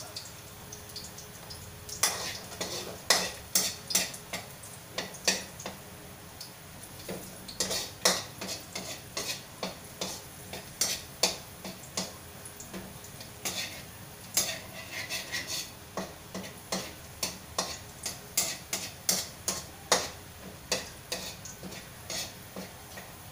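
Metal spatula scraping and clinking against a wok as garlic is stir-fried in sizzling oil. The strokes come about two a second, starting a couple of seconds in, over a steady sizzle.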